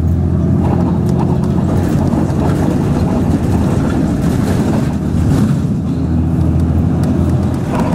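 City bus engine running with tyre and road noise, heard from inside the bus cabin; the low engine hum swells and eases as the bus drives along.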